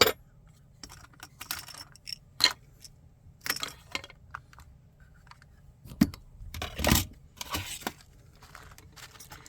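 Porcelain tea ware and dry tea leaves being handled: scattered light clinks, taps and short rustles, busiest about six to eight seconds in.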